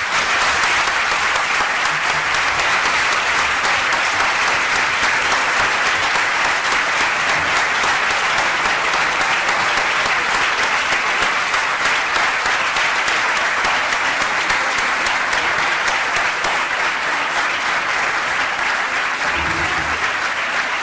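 Audience clapping in a long, steady round of applause.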